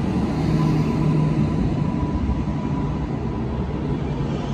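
Passenger train running slowly past the platform: a steady low rumble of the train with a faint thin whine over it.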